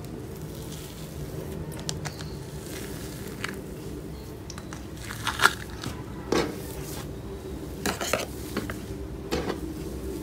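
Cloud slime thickened with instant snow being squeezed and pulled apart by hand, giving short crackling, crunchy pops, the loudest about halfway through, over a steady low hum.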